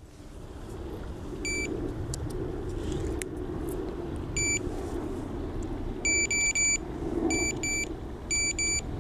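Electronic carp-fishing bite alarms beeping, set off as the line is handled while the rods are set up. Single beeps come first, then quick runs of two to four beeps from about two-thirds of the way in, over a steady low rumble.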